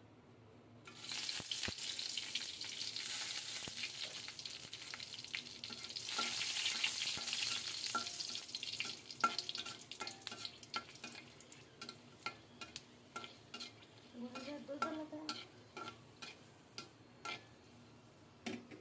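Food frying in hot oil in a pan while being stirred with a spatula. A loud sizzle starts about a second in and dies down after several seconds, leaving sharp scrapes and taps of the spatula against the pan.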